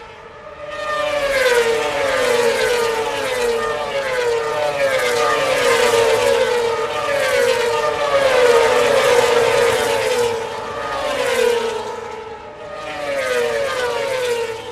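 A pack of Moto2 racing motorcycles with Honda 600 cc inline-four engines at high revs, passing one after another. Each engine note falls in pitch as the bike goes by; there is a short lull near the end before one last bike passes.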